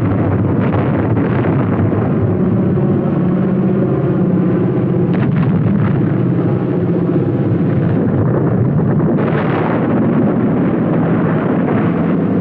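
Aerial bombs exploding in the sea on an old film soundtrack: a continuous rumble under a steady low drone, with sudden louder blasts near the start, about five seconds in and about nine seconds in.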